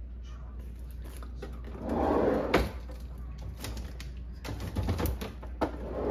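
Groceries being set into a refrigerator: a brief rustle about two seconds in, a sharp knock right after it, then several lighter clunks of containers going onto the shelves.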